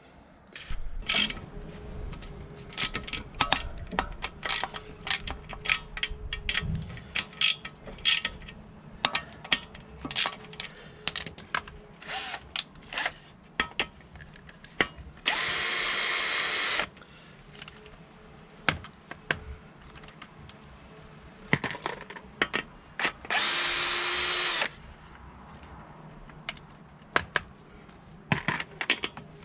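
Work on a motorcycle's front fork spindle clamps: metal hand tools clink and click over and over. Twice a power drill runs in a steady burst of about a second and a half, once about halfway through and again a few seconds later.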